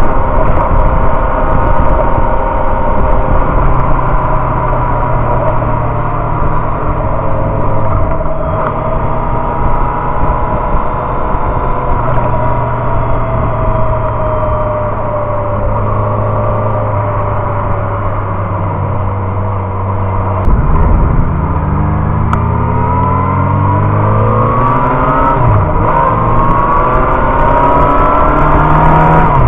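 Inline-four sport motorcycle engine heard from the bike itself under wind rush: it cruises at a steady pitch, drops in pitch as the bike slows about two-thirds of the way in, then accelerates with rising pitch through a gear change. A single sharp thump comes just before the acceleration.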